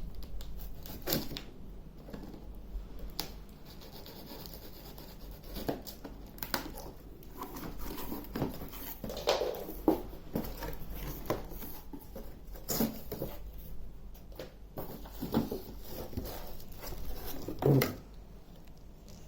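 Cardboard box and packaging being handled and opened: irregular scraping, rustling and light knocks.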